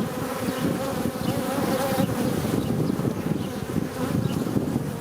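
Dense, steady buzzing of a swarm of bees flying in and out of a beehive, close to the microphone, with many wings overlapping and individual bees wavering in pitch as they pass.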